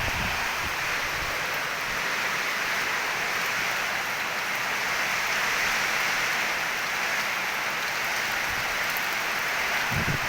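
Heavy rain pouring steadily in a rainstorm, an even hiss with no let-up.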